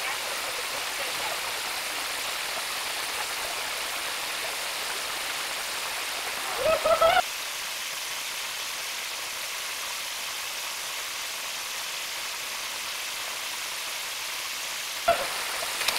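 Steady rushing of water pouring down a rock cascade and small waterfall. A brief pitched shout cuts in about seven seconds in, and a short sharp knock comes near the end.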